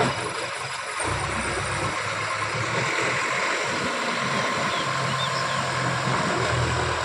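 JCB 3DX backhoe loader's diesel engine running steadily, a low hum that comes in stronger about a second in.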